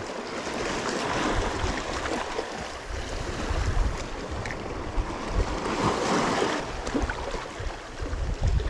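Sea waves washing, with wind buffeting the microphone in uneven gusts.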